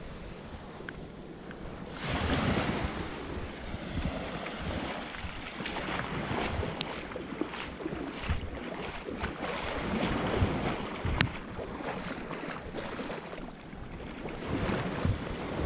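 Ocean surf washing on the shore, with wind buffeting the microphone; the wash swells about two seconds in and rises and falls after that. A few sharp ticks come through in the middle.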